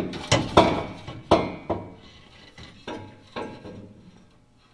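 Steel exhaust pipe clanking and knocking against the underside of a pickup as it is maneuvered into place: about seven sharp metal knocks with a short ring, the loudest in the first second and a half, then fainter.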